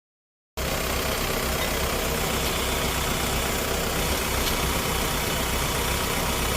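Diesel engine of farm machinery running steadily with a low, pulsing beat. It comes in after a brief gap of silence about half a second in.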